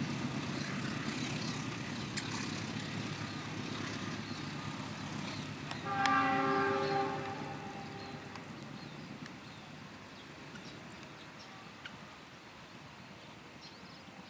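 Train horn, probably the diesel-electric locomotive's own, sounds once for about a second, several notes together. It plays over the rumble of the passing train, which fades away over the following seconds.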